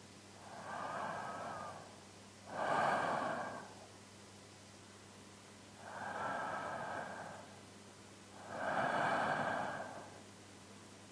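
A man breathing slowly and deeply as if asleep, close to a binaural microphone. There are two full breaths, each a softer breath followed by a louder one, with pauses of about two seconds between them.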